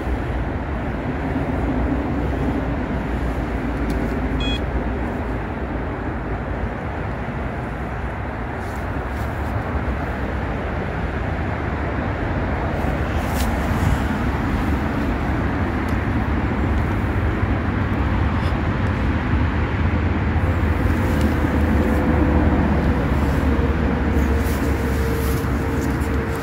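Steady road traffic noise from a busy main road: a dense, continuous rush of tyres and engines. In the second half a steady drone joins in.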